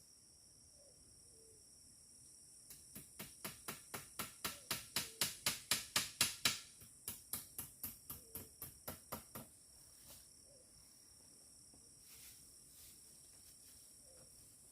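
Forest insects trilling steadily at a high pitch. A rapid series of sharp clicks, about four a second, starts about three seconds in, swells, then fades away and stops about seven seconds later.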